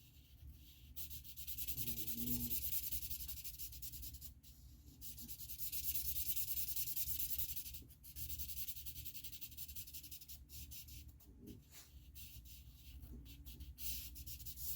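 Marker nib rubbing back and forth on stamped cardstock, colouring and blending: a soft, scratchy swishing in runs of strokes that swell and fade.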